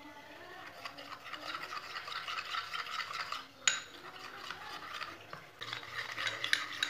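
Metal spoon stirring a thin flour-and-water paste in a small glass bowl: continuous wet scraping and swishing, with a couple of sharp clinks of the spoon against the glass.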